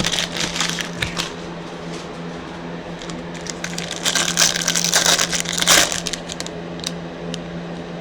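Foil trading-card pack wrappers crinkling and tearing as baseball card packs are opened and the cards handled, loudest about four to six seconds in, over a steady low hum.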